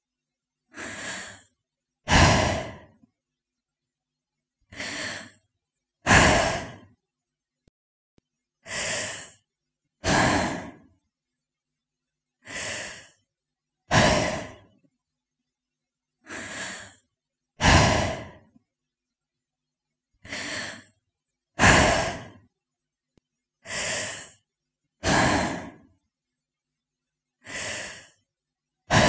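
A woman breathing slowly and deliberately, isolated breaths with silence between them. Each cycle is a softer breath followed by a louder one, repeating about every four seconds.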